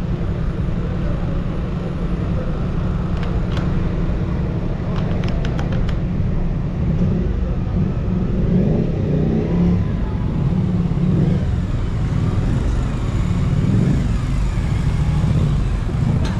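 Motorcycle engines running, a steady low rumble that swells unevenly from about seven seconds on, with a few faint ticks between four and six seconds in.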